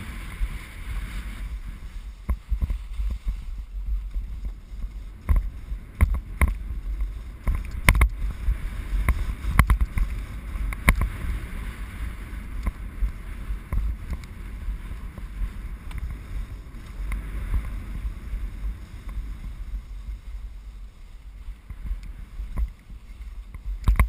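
Skis sliding and scraping over soft spring snow, with wind rumbling on the microphone. Sharp clicks and knocks are scattered through it, heaviest a few seconds in.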